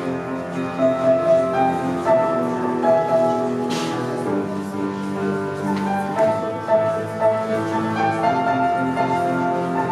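Solo piano being played: a melody in the middle register over lower held notes, moving at an unhurried pace.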